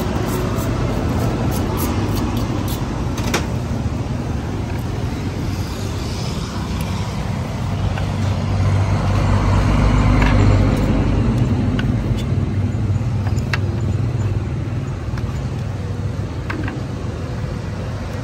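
Steady road-traffic rumble that swells louder around the middle as a vehicle passes close by. A few sharp knife taps on a wooden chopping board break through it.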